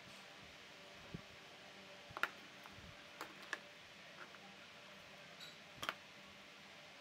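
Small brass cartridge shells of a toy revolver being handled and fitted by hand, giving a scattering of light, sharp clicks, about six in all, the loudest a little over two seconds in and near the end.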